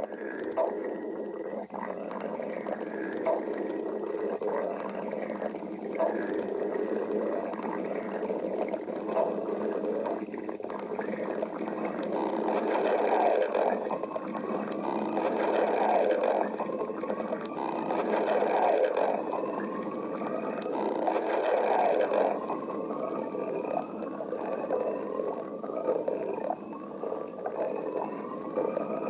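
A person's stomach growling: continuous gurgling rumbles with short rising squeaky tones, loudest through the middle stretch.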